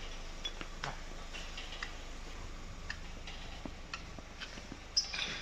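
Scattered light metallic clicks and taps from metal fittings being handled, with a sharper click about five seconds in, over a low steady hum.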